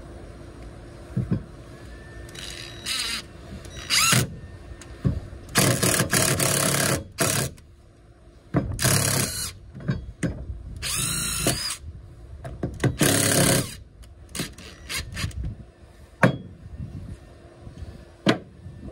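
Cordless drill running in about half a dozen short bursts, its bit working into wooden blocks and boards, with brief clicks between bursts.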